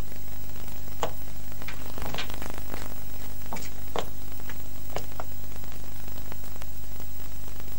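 Steady low mains hum and hiss on an old videotape soundtrack, with faint scattered clicks and crackles.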